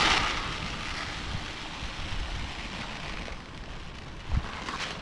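8-4-10 fertiliser being poured into a bucket: a rain-like hiss of falling granules, loudest at the start and tailing off, with another short pour near the end. Wind rumbles on the microphone throughout.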